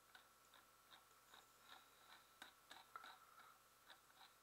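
Faint, irregular ticking of a computer mouse's scroll wheel, about four clicks a second, as a web page is scrolled, over a low steady background hum.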